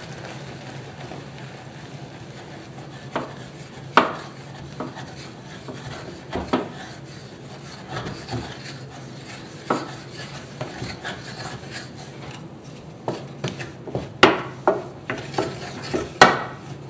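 Wooden spatula stirring and beating thick choux dough in a stainless steel saucepan, with flour just tipped into the hot butter liquid being cooked into a paste. A steady scraping runs throughout, with sharp knocks of the spatula against the pan, at first now and then and coming quick and often near the end.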